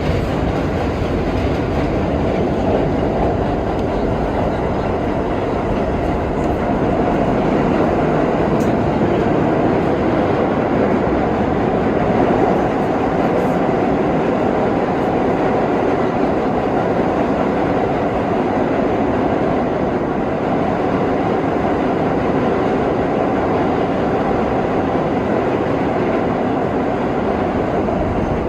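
R32 subway car running between stations, heard from inside the car: a steady rumble of steel wheels on the rails.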